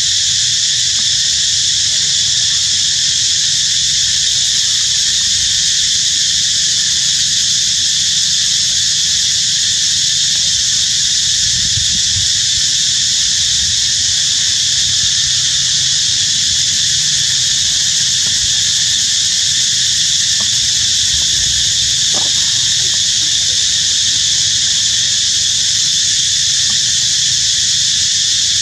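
Steady high-pitched drone of an insect chorus, unbroken and even in level, with a short click about 22 seconds in.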